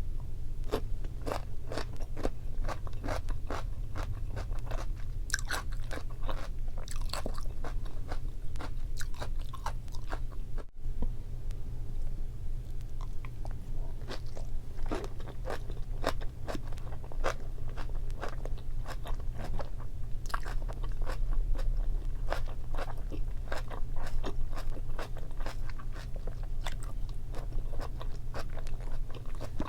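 Chewing and biting of boiled meat and Korean kimchi: a dense, continuous run of crunches and wet mouth clicks over a steady low hum.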